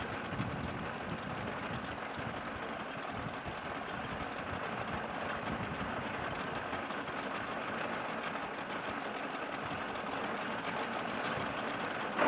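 Outboard motor of a small aluminium boat running steadily, an even drone with a fast rough flutter.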